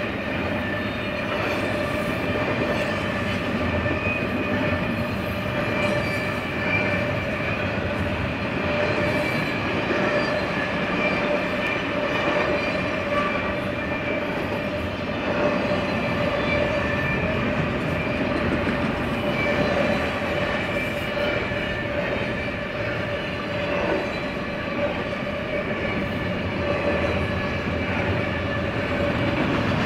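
Double-stack intermodal freight cars of a BNSF train rolling past: a steady rumble of steel wheels on rail, with a steady ringing tone over it.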